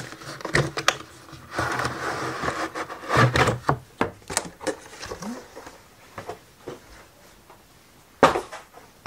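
Handling noise from a cardboard kit box and the thin laser-cut plywood sheets inside: rustling and sliding scrapes as the sheets come out, with scattered clicks and knocks and one sharp knock near the end.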